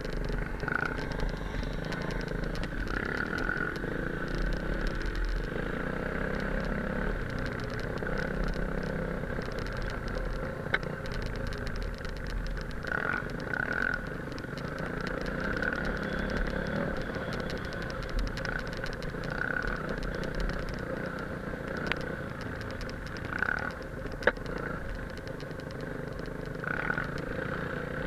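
Enduro motorcycle engine running steadily while riding a bumpy dirt track, with clatter from the bike and a few sharp knocks.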